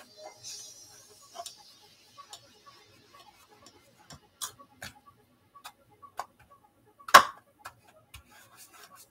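Scattered light clicks and taps of a fork and fingers against the bowls as croquettes are coated in egg batter and breadcrumbs, irregular, with one louder knock about seven seconds in.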